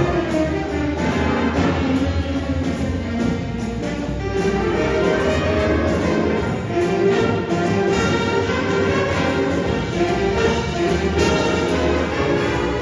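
Jazz band playing a blues tune, with brass.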